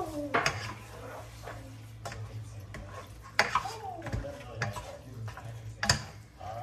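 Spatula stirring chicken pieces in a cooking pot, with a few sharp clacks of utensil against the pot.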